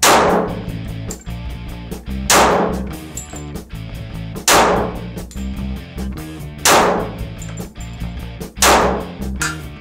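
Five shots from a Glock 36 .45 ACP pistol, evenly spaced about two seconds apart, each followed by a long echo off the walls of a vaulted brick cellar. Music with a steady beat plays underneath.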